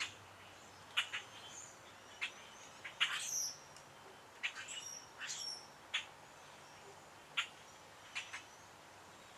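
Birds chirping: short, irregular calls scattered throughout, some sharp and clicky, some brief high whistled notes.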